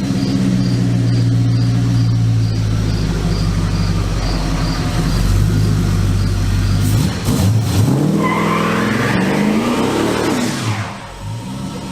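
Car engine running steadily, then revved up and down several times a little past halfway before settling back to idle.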